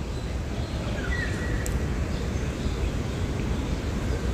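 Corn sticks deep-frying in hot oil in a steel pan: a steady sizzling crackle of bubbling oil.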